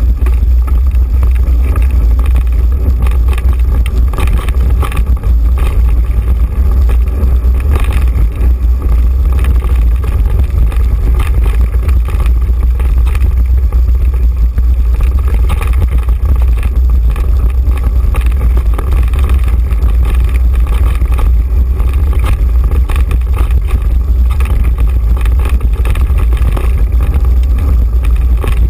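Loud, steady wind rumble on the camera microphone of a moving mountain bike, with frequent rattles and knocks from the bike and camera jolting over a rocky dirt trail.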